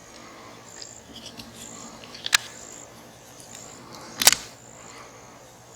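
Two sharp clicks about two seconds apart, the second louder, from a Strider/Pro-Tech PT automatic knife being worked in the hand. Crickets chirp in short high bursts behind.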